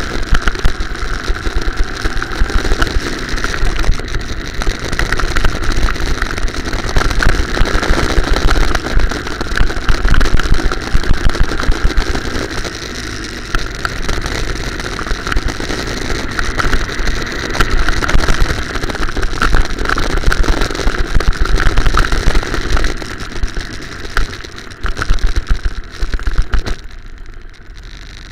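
Go-kart engine running hard around the track, heard from on board with heavy buffeting on the microphone. Near the end it drops away as the kart slows and stops.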